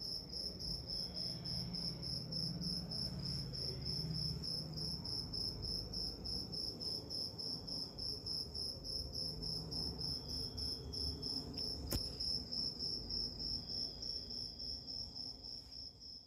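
An insect chirping steadily in a rapid, high-pitched pulse, over a low hum. A single sharp click sounds about twelve seconds in.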